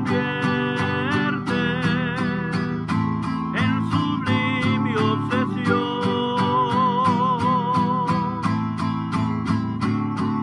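A man singing with vibrato, accompanying himself on a strummed acoustic guitar in the key of G, with a steady, even strumming rhythm.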